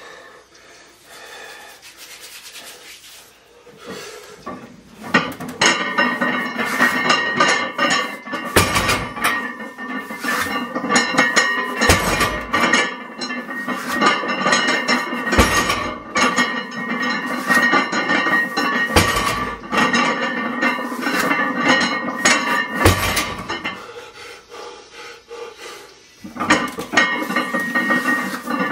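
Background music with sustained chords and a beat, building up about five seconds in, with a deep thud about every three and a half seconds.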